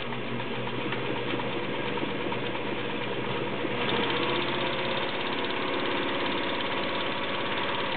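Elna Super sewing machine running steadily at its fast pedal speed while sewing a zigzag stitch, then stopping near the end.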